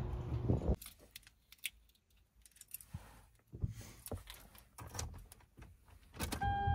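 Keys jangling and small clicks inside a car cabin, after a brief low outdoor rumble at the start. Near the end a steady electronic chime tone comes on.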